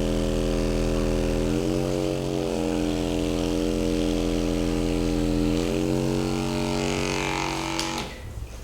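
Electric motor running with a steady hum, shifting pitch twice, then cutting off about eight seconds in with a click.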